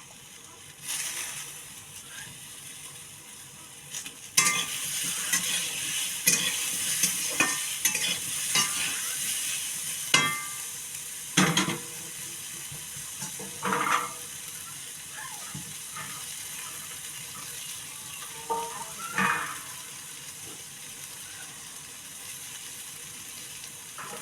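Potato and pea curry sizzling in a pan while a spoon stirs it, knocking and scraping against the pan several times. The sizzle is loudest while it is being stirred and settles to a softer hiss for the last few seconds.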